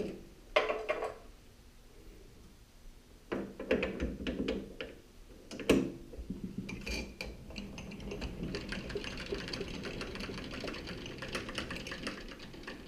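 Metal lathe work: a few sharp metal knocks and clicks, then from about six seconds in the lathe runs with a steady whir carrying dense fast ticking.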